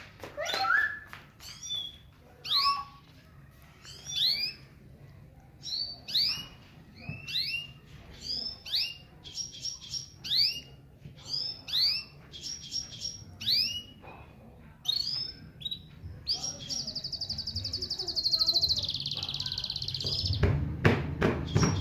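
Gulsir cross canary singing: a string of quick rising whistled notes, then a long, rapid rolling trill that slides down in pitch near its end. A few sharp knocks sound near the end.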